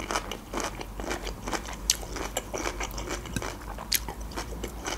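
Close-up chewing of a mouthful of food, a steady rhythm of about two chews a second, with two sharper crisp clicks about two and four seconds in.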